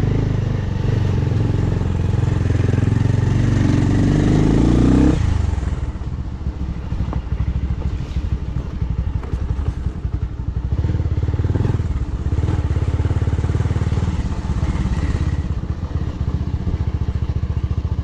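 Motorcycle engine under way, heard from the rider's seat: it pulls hard for about five seconds, then the throttle is shut and it drops to low revs with a choppy firing rhythm. It picks up again for a few seconds before easing off near the end.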